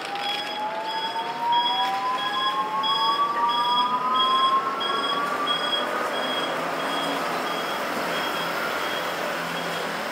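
A city bus pulling away, its whine rising steadily in pitch as it speeds up and then giving way to passing traffic noise, under high electronic warning beeps about two a second that stop about halfway through.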